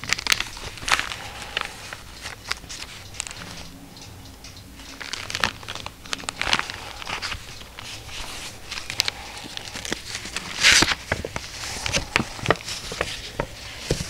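Old paper leaves of an antique book being turned by gloved hands: a run of dry rustles and small crackles, with one longer, louder rustle near the end as a folding engraved plate is opened out.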